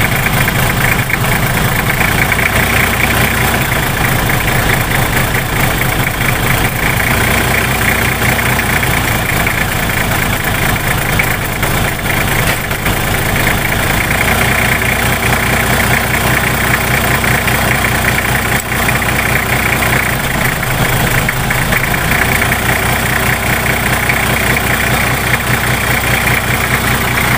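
Nissan TD42 straight-six diesel engine idling steadily with a diesel knock, running again after air was bled from its fuel system. Its injector lines are cracked open to purge leftover air from the injection pump, so the running shifts slightly.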